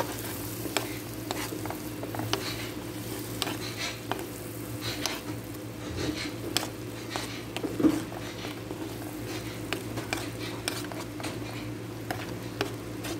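Chopped onions frying in butter and oil in a pan, sizzling steadily, while a utensil stirs the mixture and taps and scrapes against the pan with frequent light clicks; one louder knock comes about eight seconds in.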